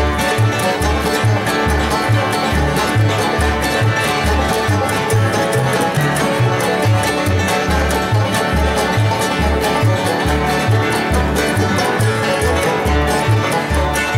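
Acoustic bluegrass band playing an instrumental break: rolling banjo, fiddle, mandolin and guitar, over an upright bass thumping out a steady beat of alternating notes about twice a second.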